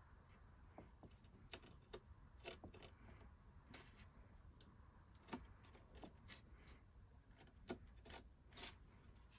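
Faint, irregular clicks and short scrapes of a hobby craft knife blade cutting a gun port out of a model ship's wooden hull planking.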